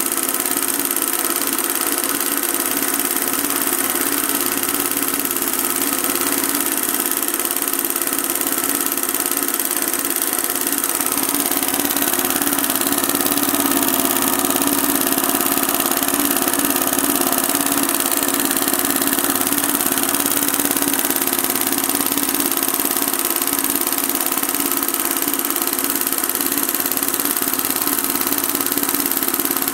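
Embroidery machine running steadily, its needle stitching fabric without a break.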